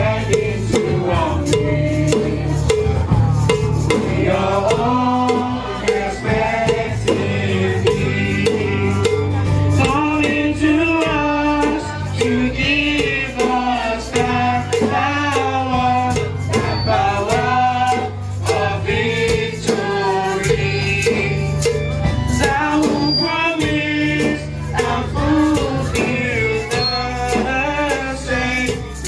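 Gospel music with singing over a steady bass line and percussion, in a church service.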